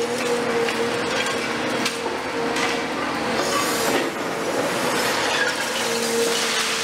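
A CAT 336F long-reach demolition excavator crushing concrete with its hydraulic crusher jaws. There is a steady mechanical whine from the machine, under continuous crunching, grinding and cracking of breaking concrete and clattering of falling debris.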